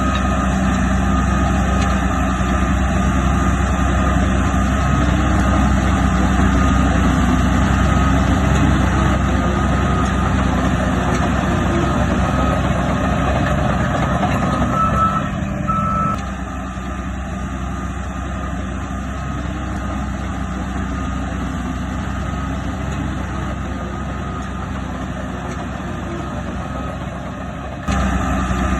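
Heavy diesel earthmoving machinery running steadily, with a reversing alarm beeping as a bulldozer or dump truck backs up. The sound gets quieter about halfway through and returns to full loudness near the end.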